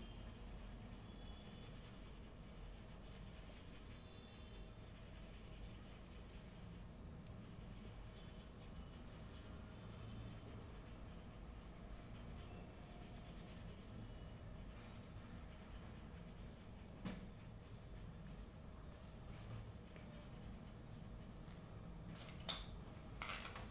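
Faint scratching of a colour pencil shading on paper, with a few short taps and paper handling near the end.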